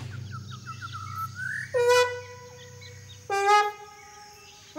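Cartoon soundtrack: a run of quick bird chirps, then two long trumpet-like notes, the second lower than the first.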